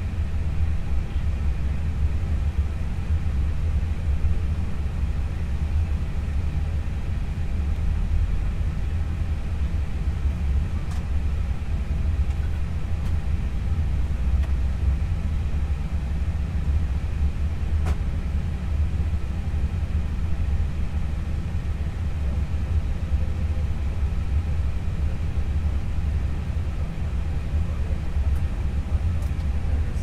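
Steady low rumble inside an Airbus A320 cockpit while the aircraft stands still, with a faint hum of steady tones above it and a faint click about 18 seconds in.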